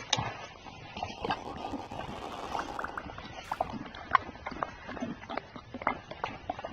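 An irregular series of light knocks and clicks, a few each second.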